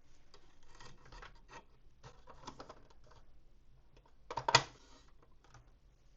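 Toy packaging and small pieces being handled for an ASMR unboxing: light clicks, taps and rustles in three short bursts, the loudest sharp clatter about four and a half seconds in.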